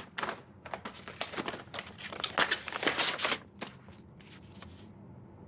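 Paper rustling and crinkling as a sheet or card is handled, a run of quick scratchy bursts for about three and a half seconds, then a few faint clicks.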